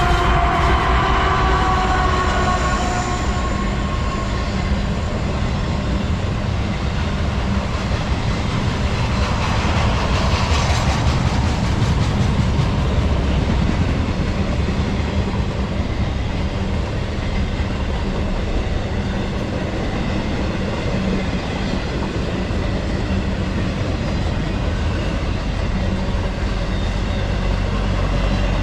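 A Norfolk Southern freight train passing close by. The locomotive's horn chord slides down in pitch and fades out in the first few seconds, then the cars roll by with a steady rumble and clickety-clack of wheels on rail joints.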